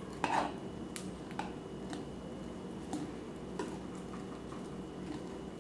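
Sharp clicks, roughly one a second, with a short rattle near the start, over a steady low hum.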